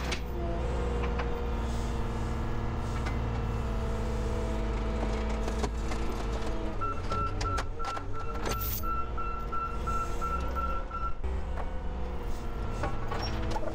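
A heavy fork loader's engine runs steadily as it works crushed car bodies on a flatbed trailer, with a few sharp metal clanks. About seven seconds in, a rapid high beeping sounds for about four seconds.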